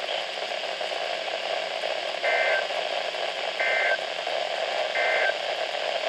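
Weather radio receiver's speaker sounding the SAME end-of-message code that closes an EAS weekly test: three short two-tone digital data bursts about 1.4 seconds apart, over steady radio hiss.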